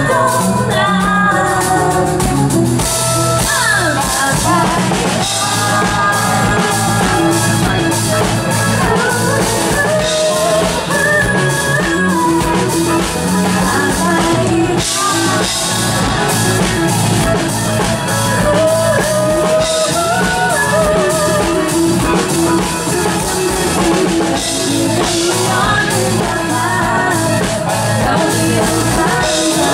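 A woman singing live with a band: guitar, keyboard and a drum kit playing a steady beat under her voice.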